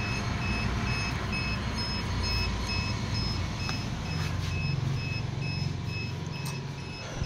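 An electronic beeper sounding a steady, evenly repeated high beep, about two a second, over a steady low hum.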